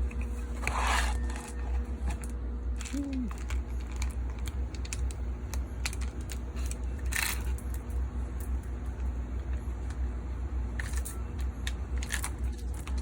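Scattered light clicks and clinks of engine parts being handled and fitted by hand during timing chain reassembly, over a steady low rumble.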